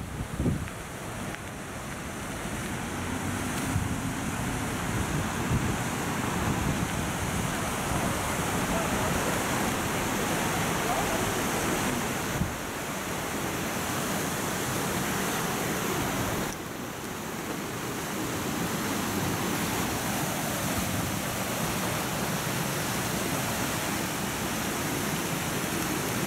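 Shallow river water pouring over small stepped concrete weirs: a steady rushing.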